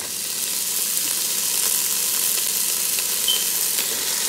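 Hot oil sizzling hard as wet black-eyed peas go into the pot with the sautéed vegetables and ham: the water on them hitting the oil. The sizzling jumps up suddenly at the start and then holds steady.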